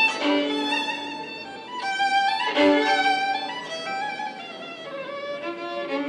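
A fiddle playing a melody in long held notes, with a small acoustic band accompanying.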